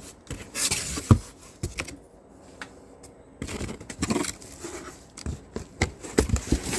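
Packaging being handled and opened: scraping and rustling with several sharp clicks and knocks.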